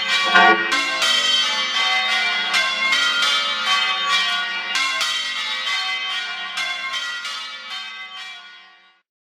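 Ring of five church bells being change rung (doubles), with an even run of strikes several a second and their overtones ringing on. The sound tails off and cuts out shortly before the end.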